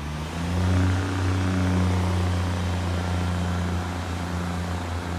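Class 143 Pacer diesel multiple unit pulling into the platform, its underfloor diesel engine running with a steady low drone.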